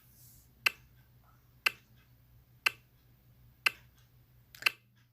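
Clock ticking once a second, five sharp ticks, over a faint steady hum: a thinking-time countdown while the riddle is guessed.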